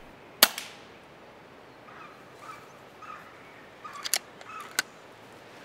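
A single shot from a Daystate Wolverine pre-charged air rifle: one sharp crack about half a second in. Faint bird chirps follow, then two sharp clicks near the end.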